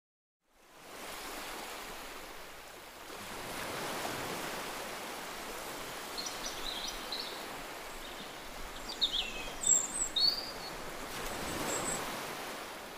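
Surf washing onto a beach, swelling and easing, fading in just after the start. A few short bird calls come over it in the middle.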